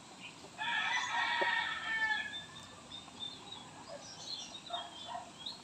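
A rooster crows once, a call lasting about a second and a half that starts about half a second in; faint short bird chirps follow near the end.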